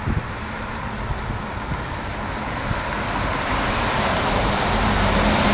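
Road traffic: cars, a van and a heavy lorry driving out of a road tunnel and coming closer, a steady tyre and engine noise that grows louder towards the end.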